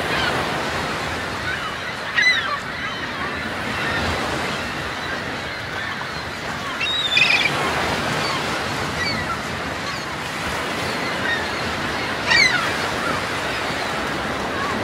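Gulls calling over a steady wash of sea waves, with louder calls about two, seven and twelve seconds in.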